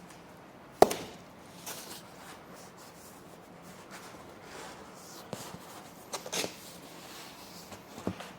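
Cardboard packaging being handled: a sharp knock about a second in, then scattered light knocks and rustles of cardboard.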